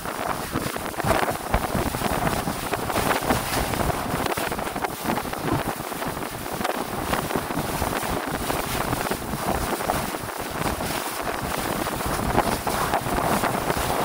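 Wind buffeting the microphone aboard a speedboat out at sea, an unbroken noise that swells and dips in gusts.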